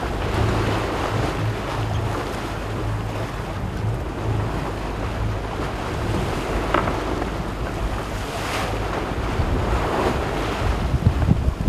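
Wind buffeting the microphone over the steady rush of water along a sailing yacht's hull.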